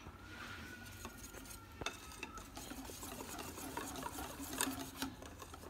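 A steel balloon whisk stirring thick qatayef batter in a bowl: a steady soft wet stirring with scattered light clicks of the wires against the bowl.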